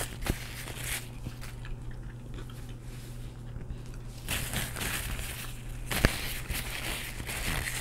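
Paper napkins crumpling and rustling as hands are wiped clean. It comes in two spells with a quieter gap between, and a couple of sharp clicks.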